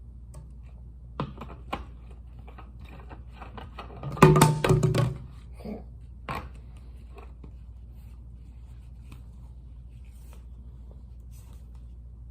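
Plastic bottles and a tube connector being handled and screwed together: scattered small clicks and taps, with a louder clatter of knocks about four seconds in, over a low steady hum.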